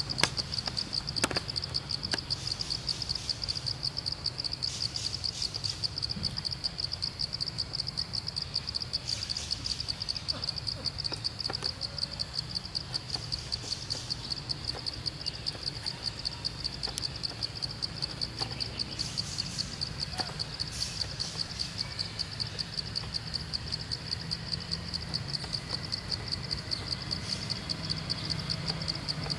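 Insect chirping in a steady, high, rapidly pulsing trill that never lets up, over a low background rumble.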